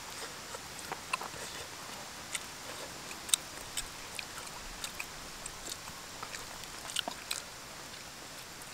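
Close-up eating by hand: chewing and mouth smacks, with irregular sharp clicks as fingers pick rice and chicken off a banana leaf, over a faint steady hiss.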